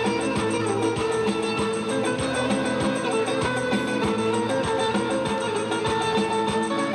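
Instrumental music: fast plucked strings over sustained held notes.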